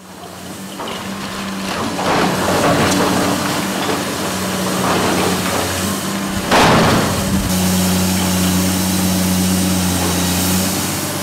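Heavy demolition machinery with its engine running steadily while it breaks into the building, with several crashes of breaking material, the loudest about six and a half seconds in.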